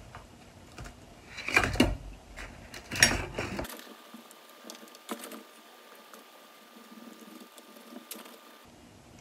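Hands scooping and crumbling oil-bonded molding sand into a wooden flask, a dry rustling and rubbing, with two louder scrapes about one and a half and three seconds in, then softer crumbling.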